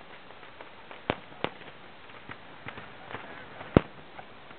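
Scattered sharp bangs of blank shots: two loud ones about a second in, a third near the end, and fainter pops between them.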